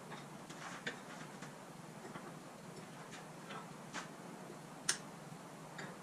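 Faint, scattered light clicks and taps of hand work at a car's front suspension and steering, roughly one a second and unevenly spaced, with one sharper click about five seconds in.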